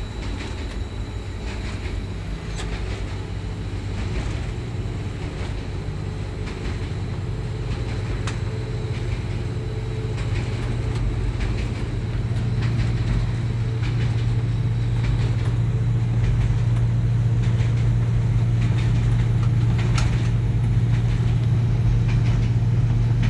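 Diesel-electric locomotive and train running through a station, a steady low engine drone growing louder throughout, with occasional sharp clicks and rattles from the rails and coaches.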